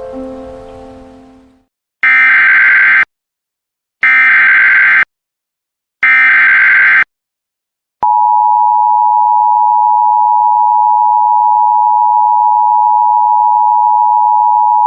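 Emergency Alert System header: three one-second bursts of buzzy data tones, each a second apart, then a steady, loud, high-pitched attention tone starting about eight seconds in, opening a National Weather Service warning. A piano tune fades out at the start.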